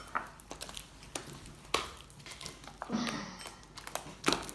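Sticky homemade slime being squeezed and kneaded by hand, with quiet scattered crackles and clicks. A sharper knock comes near the end. The slime is still sticky and not yet firm.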